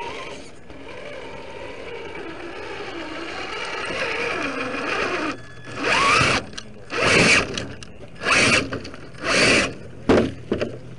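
RC rock crawler's electric motor and geared drivetrain whining under throttle, the pitch wandering as it climbs, then four short, loud blips of throttle about a second apart and a quick one near the end.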